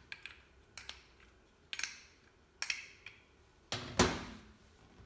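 Light clicks and taps of a PEX crimping tool and fitting being handled, about six separate knocks with the loudest double knock about four seconds in.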